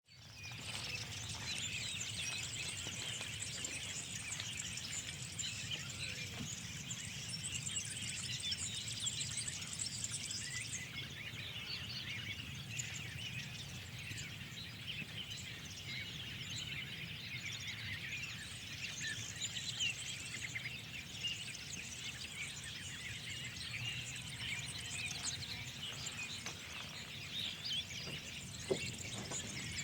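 Many small birds chirping and twittering together in a dense, continuous spring chorus over a low, steady background rumble. A single sharp click comes near the end.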